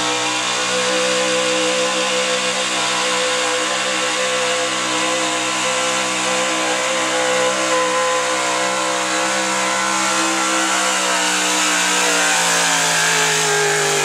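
Gasoline engine of an altered-stock 4x4 pickup held at high revs under full load while pulling a weight sled. The pitch stays steady and sags a little over the last few seconds as the truck bogs down.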